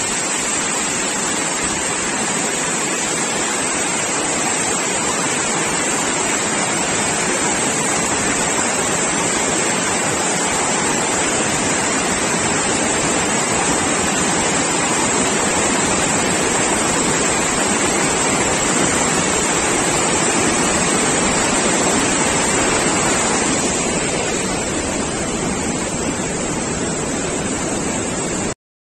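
Floodwater rushing hard and steadily through an opened sluice gate, a constant roar of water that cuts off suddenly near the end.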